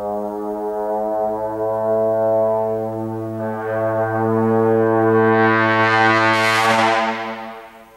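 Solo trombone holding one long low note that swells louder and brighter, opening into a brassy blare about six seconds in, then dies away shortly before the end.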